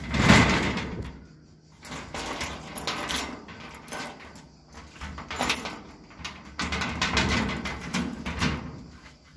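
A loud knock right at the start, then several uneven spells of scraping and rattling, as of something being pushed or shifted about by hand.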